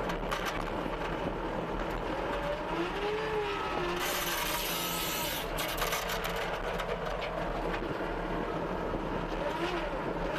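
CASE TR270B skid steer's diesel engine running steadily while it drives the hydraulic rototiller attachment. A whine rises and falls a couple of times, and a burst of hiss comes about four seconds in and lasts over a second.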